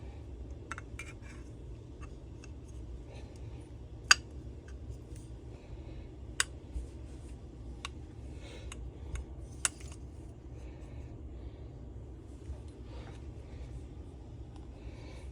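Small metal engine parts and tools clicking and tapping against each other while the bottom end of a two-stroke leaf blower is assembled by hand. A handful of sharp clicks, the loudest about four seconds in, over a steady low hum.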